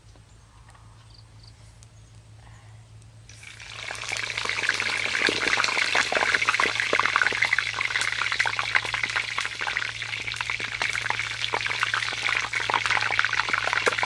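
Small plucked birds frying in hot oil in a pot over a wood fire: a sizzle thick with crackling starts suddenly about three and a half seconds in, as the birds go into the oil, and keeps on steadily.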